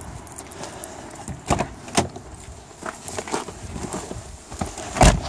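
Clicks and knocks as a person gets into a car, then the car door shutting with a heavy thump near the end.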